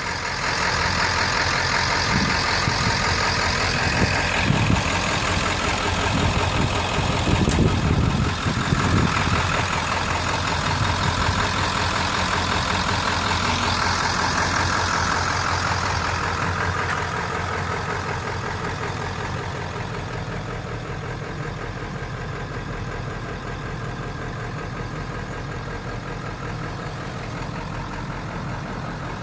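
Ford 7.3L Power Stroke turbo-diesel V8 idling steadily, with a few dull bumps in the first ten seconds. About halfway through the sound turns duller and a little quieter as it is heard from inside the cab.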